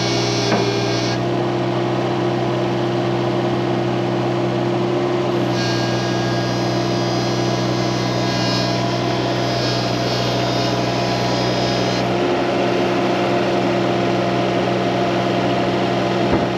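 Hitachi Zaxis mini excavator's diesel engine running steadily as the arm and bucket are worked, with a high whine from the hydraulics coming in briefly at the start and again from about five and a half to twelve seconds in.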